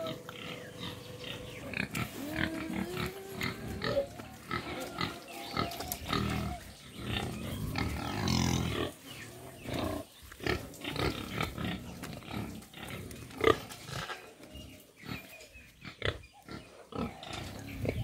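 Domestic pigs in pens making short, irregular grunting sounds, with a longer pitched call about halfway through. A sharp knock a little later is the loudest sound.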